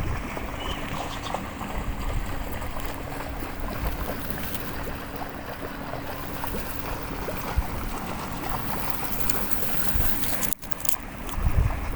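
Waterfall water rushing steadily, with a brief sudden drop-out about ten and a half seconds in.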